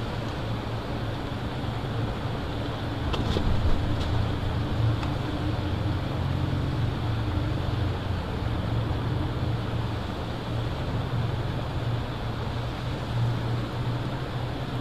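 Steady wind rushing over the outdoor nest-cam microphone, with a constant low rumble beneath it. A brief cluster of sharp knocks about three to four seconds in.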